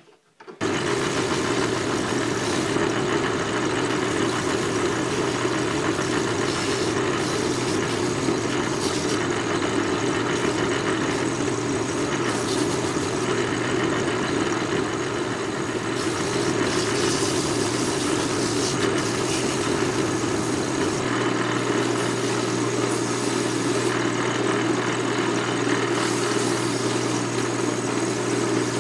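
Craftsman 12-inch wood lathe running steadily while the spinning pipe blank is hand-sanded. A low hum comes up stronger about two-thirds of the way through.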